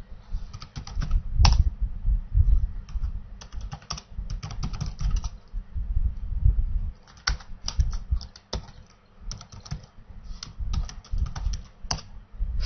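Computer keyboard typing in quick runs of keystrokes with short pauses between them, and a brief lull about nine seconds in.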